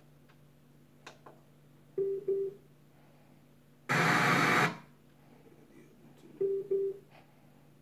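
Polaroid wireless tower speaker giving a short double beep as its mode button on top is pressed. About four seconds in comes a loud burst of static hiss lasting under a second, then another double beep as the speaker switches between its aux and Bluetooth modes.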